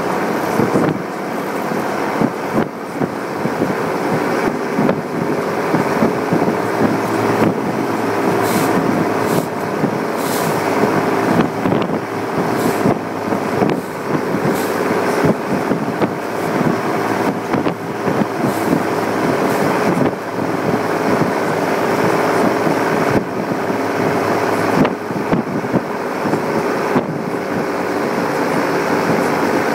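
Mercedes-Benz MB-trac 1100's OM366A turbocharged inline-six diesel running steadily while the tractor drives, heard from inside the cab, with frequent rattles and knocks from the cab throughout.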